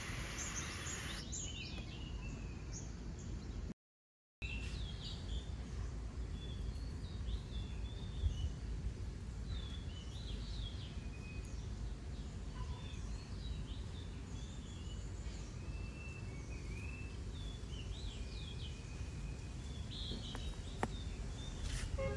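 Several small birds chirping and calling on and off over a steady low background rumble of outdoor noise, with a brief cut to silence about four seconds in.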